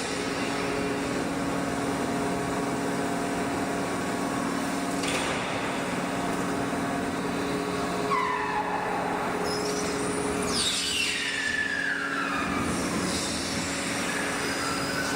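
Heavy industrial machinery running with a steady hum. About eight seconds in, high metallic squeals join it, sliding down and then up in pitch for several seconds.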